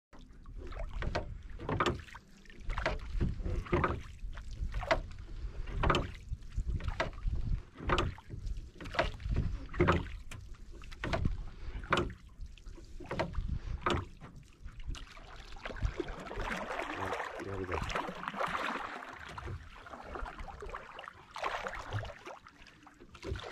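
Wooden fishing boat with a line being hauled in by hand over the side: short knocks and water splashes about once a second, giving way to several seconds of steady splashing near the end.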